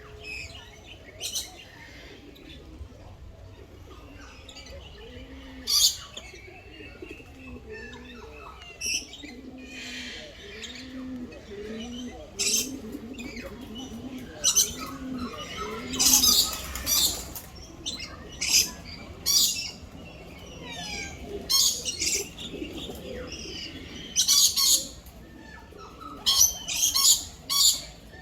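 Birds in an aviary calling: loud, harsh squawks every one to three seconds, over low cooing calls that fade out a little past the middle.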